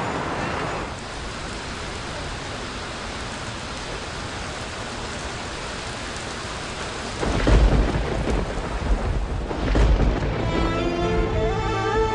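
Steady rain, then two loud rolls of thunder about seven and nine and a half seconds in, laid as a storm effect over the opening. Music with held notes comes in near the end.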